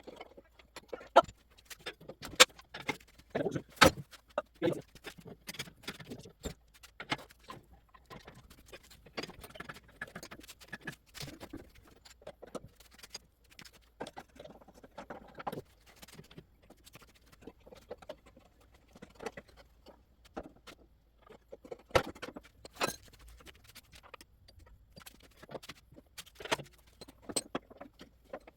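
Irregular clinks and knocks of metal tools and parts being handled, coming in uneven clusters.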